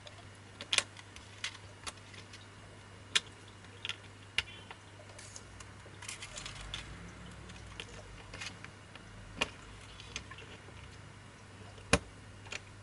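Laser-cut acrylic enclosure panels clicking and tapping against each other and the base as they are slotted together around a circuit board: scattered sharp clicks, the loudest about a second in and near the end, with a stretch of soft rustling handling noise in the middle.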